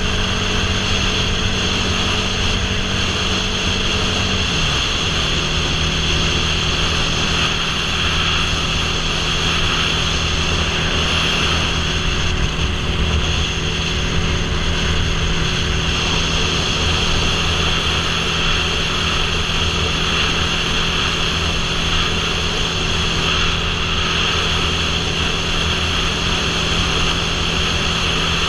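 Motorcycle engine running steadily at highway cruising speed, with wind noise rushing over a helmet-mounted microphone. The engine pitch drops slightly about five seconds in, then holds steady.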